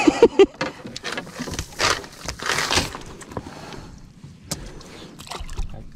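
A wet cast net full of fish being shaken out over a small boat's floor: irregular rustling, dripping and splashing as fish and water drop from the mesh and are pulled free by hand.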